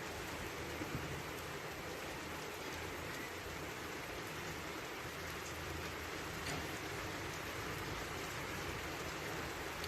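Steady rain falling, an even hiss with scattered drops pattering on surfaces.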